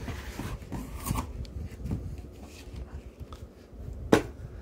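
Cardboard boot box being opened and its contents handled: rustling, scraping and scattered light knocks, with one sharp knock about four seconds in.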